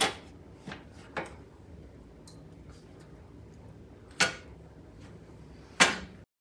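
Blower housing parts of a fireplace insert knocking and clicking as they are fitted to the frame: a few light knocks at first, then two louder ones about four and six seconds in. The sound cuts off suddenly just before the end.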